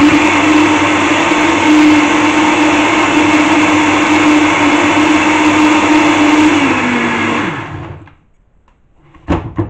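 Countertop blender running at full speed, blending carrot, apple, strawberries, satsuma and lemon with water into a smoothie, its motor steady in pitch. About seven seconds in the motor winds down, falling in pitch, and stops a second later. A couple of short knocks follow near the end.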